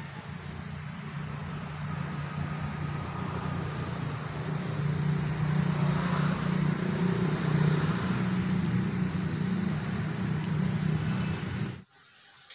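Generator set in a metal soundproof enclosure running with a steady low hum, which cuts off abruptly near the end.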